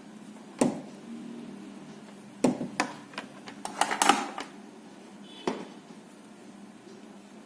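Small sharp clicks and taps of tools and parts being handled on a workbench, about five separate knocks with a quick cluster about four seconds in, over a steady low hum.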